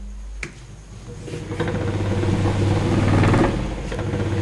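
Electric churner (rai) motor driving a homemade plastic fan blade, switched on with a click about half a second in. It spins up with a rising hum and rattle, then runs fast and steady.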